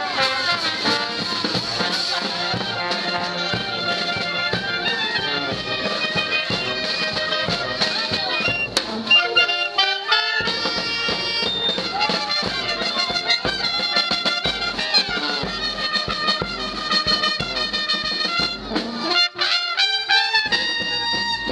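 A street brass band of trombones, trumpets and a sousaphone playing a tune together, the low bass line pausing briefly twice.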